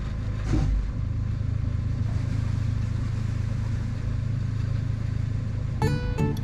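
Steady low hum of a Seawind 1600 catamaran's inboard diesel engine running as the boat motors under way. Plucked acoustic guitar music comes in near the end.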